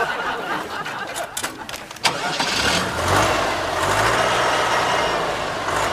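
Rustling and a few clicks, then about two seconds in a heavy machine's engine starts and runs steadily, likely the telehandler used to pull down the goal.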